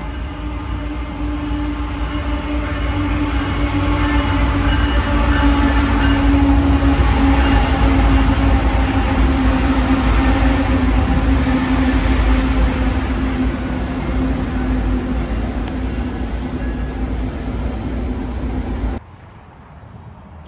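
BNSF freight diesel locomotives hauling a double-stack intermodal train pass close by: a steady engine drone over heavy rumble, growing to its loudest as the lead units go by and then easing as the container cars follow. About 19 seconds in it cuts off abruptly to much quieter background noise.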